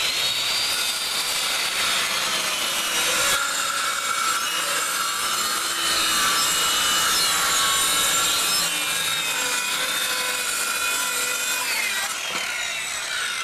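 Corded circular saw running steadily through one long cut in a wooden panel, with a whining motor over the cutting noise. Near the end the whine falls as the blade spins down.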